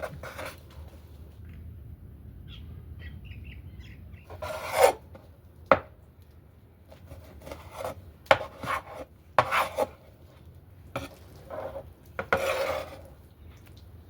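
Several rough scraping or rasping strokes, each under a second, mixed with a few sharp knocks, as of utensils working food against a hard surface or pot. There is a faint low hum underneath.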